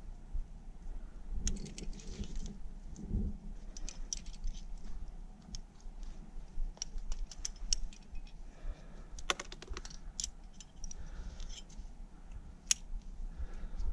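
Metal climbing hardware (carabiners and protection racked on a harness) jingling and clicking in quick, irregular taps, with a couple of dull low knocks in the first few seconds.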